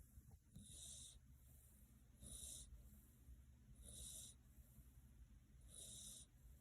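A sleeping cat snoring softly: four short, hissing breaths, evenly spaced a little under two seconds apart.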